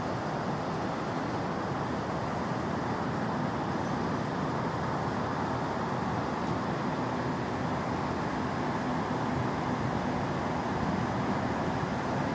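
Steady distant road traffic: an even wash of road noise with no single vehicle standing out, and a faint steady tone joining about halfway through.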